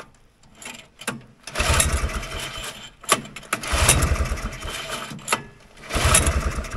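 Three hard pulls on the recoil starter of a Polaris Colt 250 single-cylinder two-stroke snowmobile engine. Each pull cranks the engine over in a quick burst of chuffing that stops as the pull ends, with a click as the rope rewinds. The engine does not catch, from a lack of spark or fuel.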